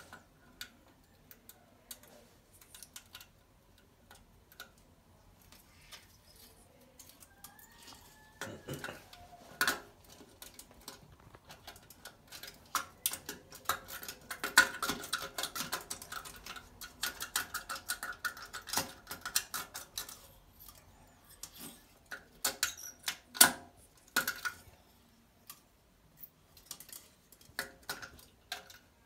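Irregular clicks, taps and scrapes of a thin metal wire tool being worked against a porcelain toilet bowl and down its drain, busiest around the middle.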